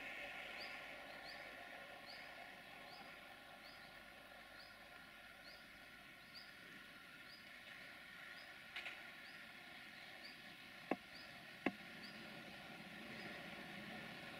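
Quiet rural outdoor sound: a faint high chirp repeats about three times every two seconds over a steady high hiss, and two sharp clicks come close together about eleven seconds in. Near the end the low rumble of the approaching Siemens Desiro diesel multiple unit begins to rise.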